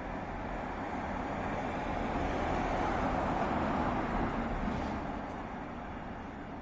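Street traffic noise, a passing vehicle swelling to its loudest midway and then fading.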